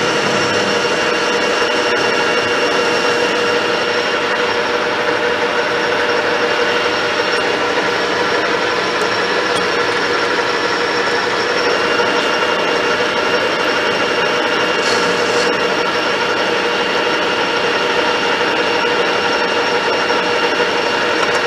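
Metal lathe spindle running steadily with a gear whine while a single-point tool cuts a 2 1/4-inch cold-rolled steel bar, the cut adding a steady scraping hiss. A higher whine comes in about halfway, and a brief sharper hiss sounds a few seconds later.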